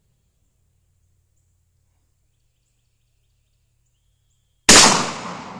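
A single shot from a .454 Casull revolver about four and a half seconds in: a sudden, very loud report that dies away over about a second.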